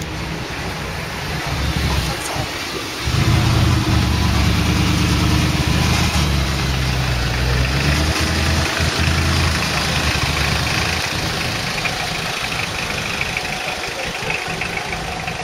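Audi R8 GT's V10 engine running at low revs; about three seconds in it grows to a loud, deep drone, which eases off again after about ten seconds.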